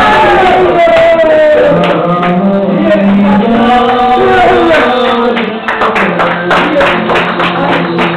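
Male singing with musical accompaniment, a steady low note held under the voice. From about five seconds in, sharp beats join at a regular rhythm.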